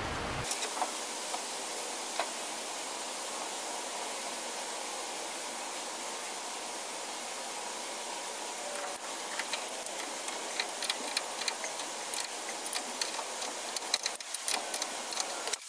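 Light metallic clicks and taps from parts of a locomotive's automatic brake valve being handled and fitted back together by hand. The taps grow more frequent in the second half, over a steady hiss.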